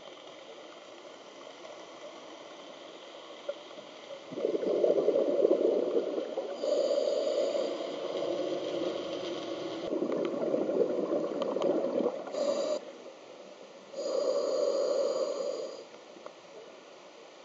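A scuba diver's regulator breathing underwater: long bubbling, gurgling exhalations, one long stretch starting about four seconds in and a shorter one near the end, over a low steady hiss.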